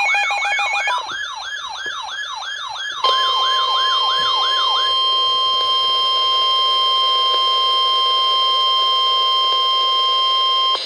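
An electronic siren sounding rapid falling sweeps, about three a second, with a quick high-low beeping at first. About three seconds in, the steady 1050 Hz NOAA Weather Radio warning alarm tone comes in, holds alone once the siren stops, and cuts off abruptly near the end, signalling that a weather warning broadcast follows.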